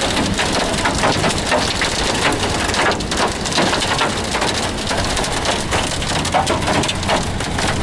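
Hailstones hitting a vehicle's clear Lexan roof panel, heard from inside the cabin: a dense, unbroken clatter of sharp taps.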